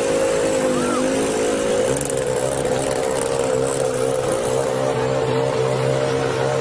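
A motorbike engine running steadily, its hum wavering slightly in pitch.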